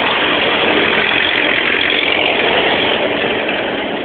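Motor vehicle engine running, loud and steady, a little louder over the first three seconds.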